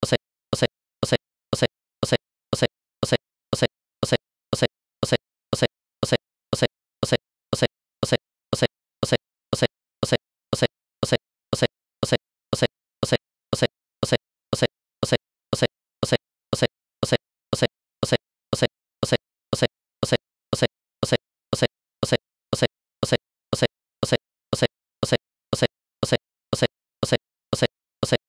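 A short plop-like blip repeating at a perfectly even pace, a little under two a second, with silence between the blips.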